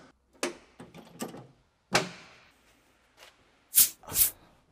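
A truck's battery-box cover being latched shut: a few small clicks, then one sharp snap about two seconds in. Near the end come two quick whooshes, the loudest sounds here.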